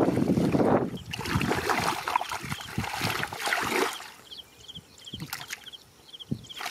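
Muddy water sloshing and splashing as a man wades and gropes with his hands through a shallow mud puddle while hunting for fish. About four seconds in it quiets, leaving short high chirps repeating about twice a second.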